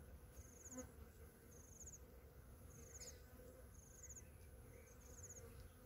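Faint insect chirping: short, high, finely pulsed chirps repeating about once a second, over a thin steady high whine.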